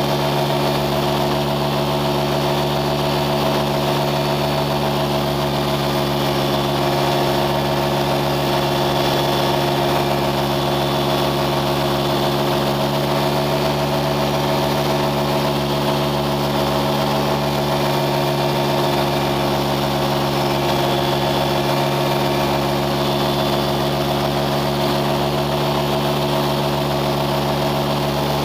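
An engine running at a steady speed: a constant drone that does not change in pitch or loudness.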